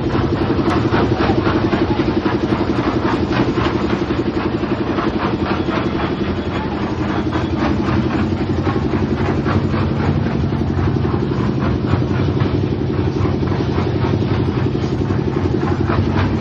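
An engine running steadily, with a fast, continuous clatter of knocks over it.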